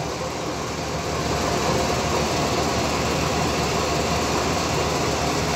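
Steady noise of running machinery, an even mechanical hum and hiss that rises slightly about a second in.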